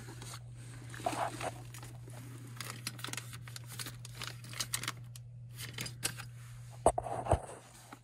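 A clear plastic bag crinkling and rustling as it is handled inside a sheet-metal furnace cabinet, with light scrapes and a couple of sharper knocks near the end, over a steady low hum.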